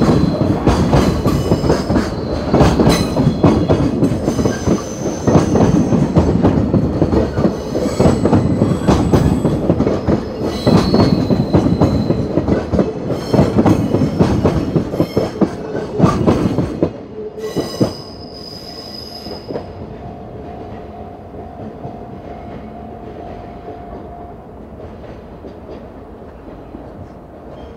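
Freight wagons of a DD51-hauled freight train rolling past, with wheels clattering over rail joints and brief high wheel squeals. The last wagon goes by about 17 seconds in, and the sound drops to the fainter rumble of the departing train.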